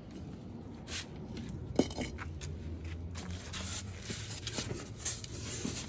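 Handling noise of light knocks, clinks and rustling, with one sharp click about two seconds in.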